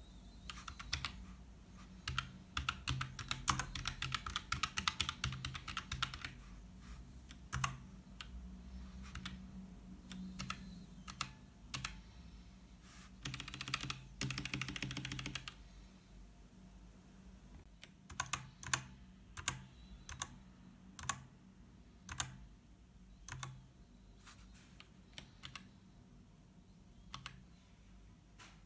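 Typing on a Hexgears X-1 low-profile mechanical keyboard with brown tactile switches. Two runs of fast typing alternate with scattered single keystrokes, and the second half has slower, separate key presses.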